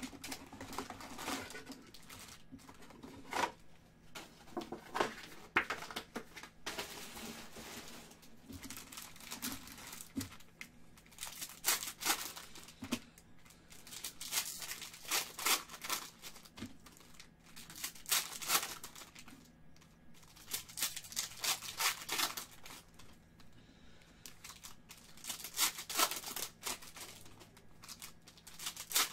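Foil wrappers of Panini Select basketball card packs being torn open and crinkled by hand, in repeated bursts of crackly rustling and tearing.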